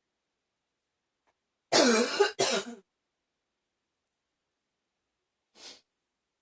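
A woman coughing: two harsh coughs in quick succession, the first longer and partly voiced. A brief faint breath follows near the end.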